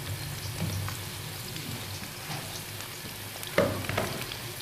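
Chicken pakora deep-frying in hot oil in a karahi, the oil sizzling and crackling steadily as a metal slotted skimmer moves the pieces. A couple of sharp knocks of the skimmer against the pan come near the end.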